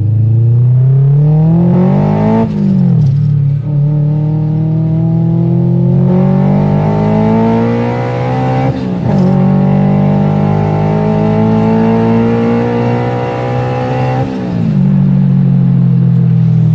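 Car engine accelerating hard up through the gears, heard from inside the cabin. The pitch climbs, drops sharply at each of three upshifts, and each higher gear takes longer to climb.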